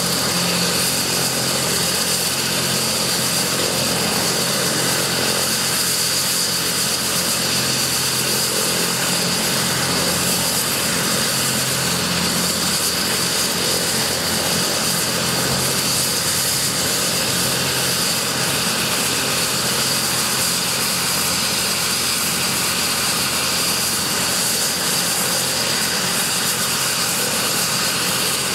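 Kazan Ansat helicopter running on the ground with its main rotor turning: the steady, high whine of its twin Pratt & Whitney PW207K turboshaft engines over the rush of the rotor.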